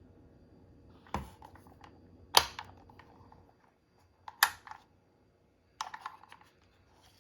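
Handling noise as a boxed table fan and its plastic bag are moved about: four separate knocks and clicks with brief crinkly rustles after them, the second about two and a half seconds in the loudest.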